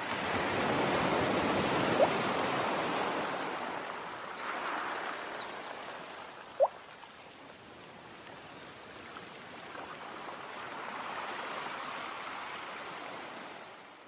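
Recorded sea surf playing from a sleep-sounds app: a steady wash of waves that swells, ebbs away, and swells again near the end. Two brief rising blips sound over it, about two seconds in and again a few seconds later.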